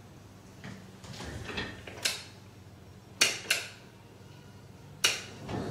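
Trial lenses being handled and slotted into a trial frame: softer handling noise, then four sharp clicks, two of them close together, between about two and five seconds in.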